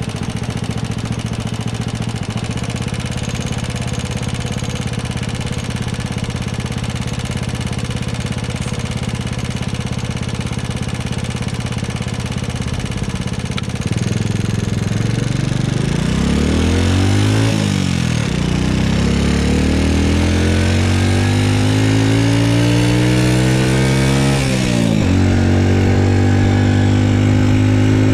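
Honda Super Cub's single-cylinder four-stroke engine running steadily under way, then revving up from about halfway, with two sudden drops in pitch as it shifts up, settling at a higher steady note near the end. The owner says the engine is making an abnormal noise.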